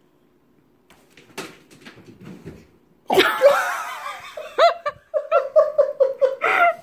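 A person laughing loudly, starting suddenly about three seconds in and going on in quick rhythmic bursts, after a few faint knocks.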